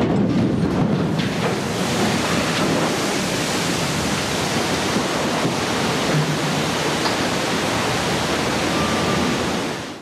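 Rushing, churning water as a cargo ship is side-launched, its hull sliding sideways off the slipway and plunging into the water to throw up a large wave. It is a steady, loud wash of noise that cuts off abruptly near the end.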